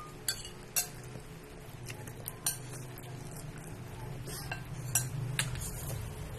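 Metal spoon clinking and scraping against a ceramic bowl in several irregular, sharp taps as a small child eats.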